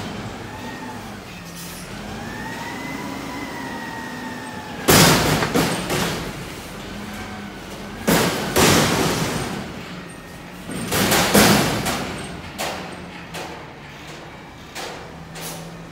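Front-loading garbage truck (CNG Peterbilt 520 with a McNeilus Contender body) running its hydraulics to lift a dumpster over the cab, the hydraulic whine rising and falling over a steady engine hum. Then come three loud crashes, about 5, 8½ and 11 seconds in, as the raised container is dumped and trash falls into the hopper, with smaller knocks afterward.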